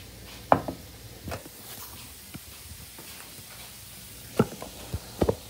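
A handful of sharp knocks and clunks as things are handled in a kitchen: one about half a second in, then a cluster of three or four near the end, over a low steady hum.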